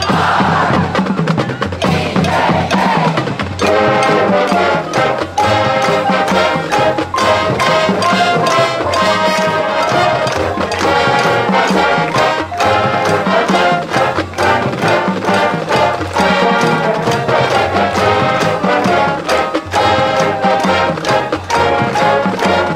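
Marching band playing the school fight song: drums carry a steady beat, and the brass comes in about three and a half seconds in.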